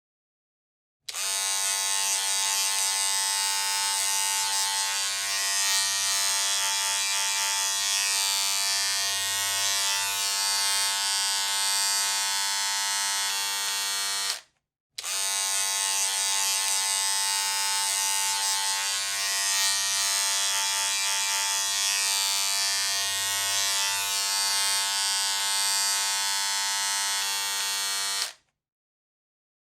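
Electric hair clippers running with a steady buzz, heard twice: each run starts abruptly about a second in and again at about 15 s, lasts about 13 seconds, and cuts off abruptly.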